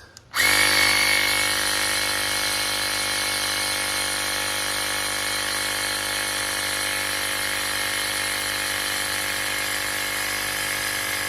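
SOWINK 150 PSI cordless tire inflator's electric piston compressor starting about half a second in and running steadily, pumping air through a needle into a flat basketball toward a preset 8 PSI. It is slightly louder for the first second, then settles to an even hum.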